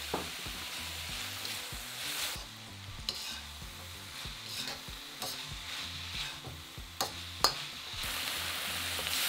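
Onions, peppers, garlic and ginger sizzling in a hot wok while a metal spatula stirs and turns them. The sizzle eases off in the middle and picks up again near the end, with two sharp knocks of the spatula against the wok a little before it picks up.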